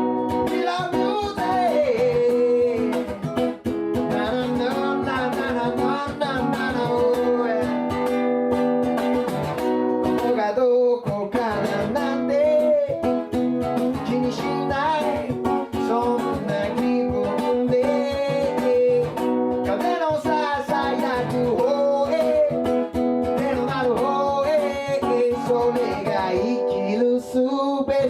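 Live acoustic guitar strummed steadily, with a voice singing a melody over it.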